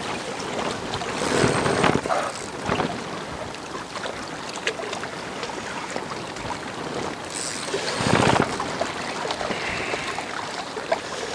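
Strong gusting wind on the microphone with choppy reservoir water lapping at the bank. It swells twice, about a second in and again near eight seconds.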